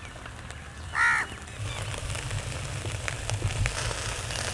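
A crow caws once about a second in, over the faint crackle and sizzle of chicken skewers grilling on hot charcoal. A low rumble sets in about a second and a half in.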